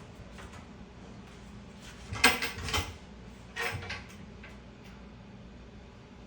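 Handling clatter while herbal medicine is being compounded: a quick cluster of knocks and rattles about two seconds in, then a shorter one about a second and a half later.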